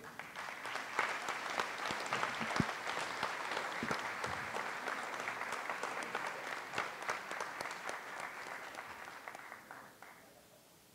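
Audience applauding, a steady patter of many hands clapping that fades and stops about ten seconds in.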